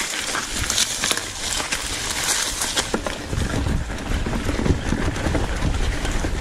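Mountain bike rolling over a bumpy forest trail, picked up by a camera on the rider: tyre noise on dirt and roots with constant rattling and clicking from the bike. A deeper rumble joins in about halfway through.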